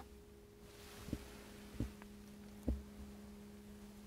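Steady low hum with three soft low thumps, about a second apart.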